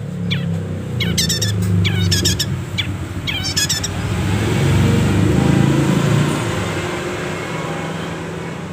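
Long-tailed shrike (cendet) calling in short, rapid chattering phrases through the first four seconds, over a steady low engine hum. A vehicle then passes, swelling to its loudest about halfway and fading.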